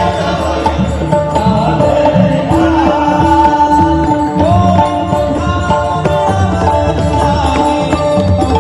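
Marathi devotional bhajan: a solo male voice sings an ornamented, gliding melody over steady held notes, with a drum and jingling hand percussion keeping a brisk beat.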